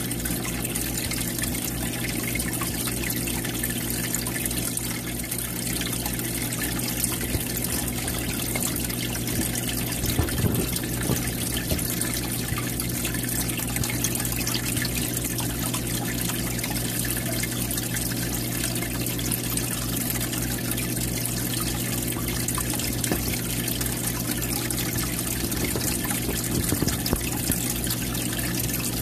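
Aquarium filter return water trickling and splashing steadily into the tank's surface, over a steady low hum from the running pump.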